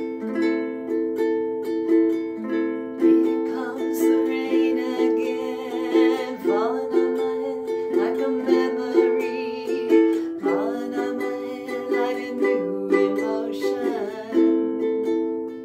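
Ukulele picked in a steady, repeating pattern of notes, with a woman singing over it through the middle.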